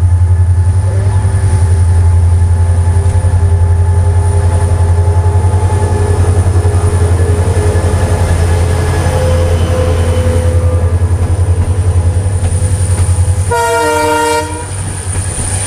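Indian Railways EMD diesel locomotive and its train passing close: a loud, steady deep rumble with a fast pulsing beat. Near the end comes one short multi-tone horn blast, about a second long.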